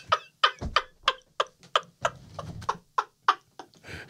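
Men laughing hard and breathlessly, a wheezing laugh in quick, sharp pulses of about four a second.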